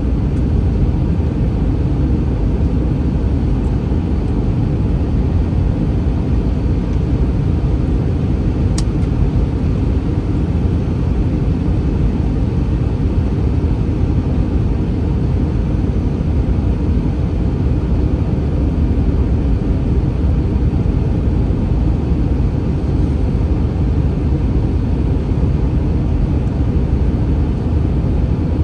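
Steady low rumble of the Airbus A321's engines and cabin noise, heard from a passenger seat inside the cabin.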